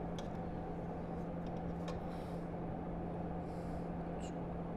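Steady low hum with a constant pitch, with a few faint light clicks and two brief soft scraping hisses.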